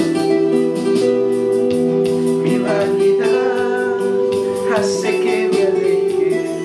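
Music: plucked guitar over held keyboard chords.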